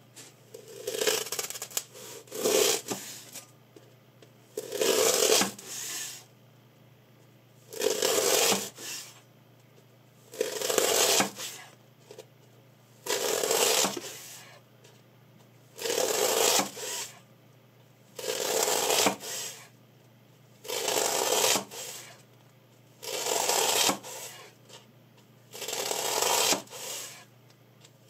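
Kitchen knife slicing down through a block of white packing foam, a rasping, squeaky cutting stroke about a second long, repeated about eleven times at a steady pace of one every two and a half seconds: a sharpness test of a freshly sharpened blade.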